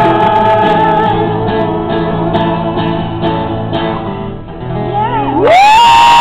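A group of voices sings the closing line over strummed acoustic guitar, then the guitar plays a few final even strums and fades. About five and a half seconds in, a loud rising whoop breaks out as cheering begins.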